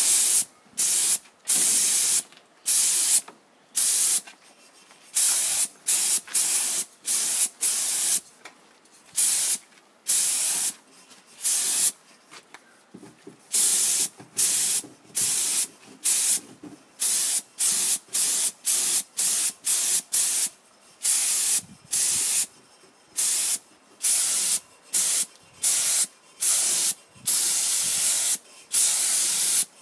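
Compressed-air paint spray gun hissing in short bursts, about one a second, as the trigger is pulled over and over to spray black paint onto a wheel rim.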